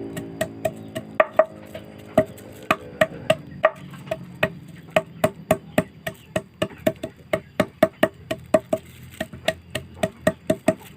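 Steady rhythmic wooden knocking, about three hollow knocks a second. Held notes under the knocks fade out in the first few seconds.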